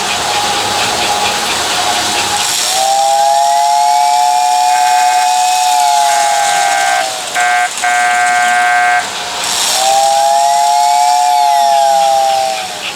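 American Flyer toy train steam whistle, a motor-driven whistle, blowing two long two-tone blasts whose pitch sags as each one dies away. Between them comes a shorter, buzzier toot, broken twice. Before the first blast there is a steady hum with fast ticking.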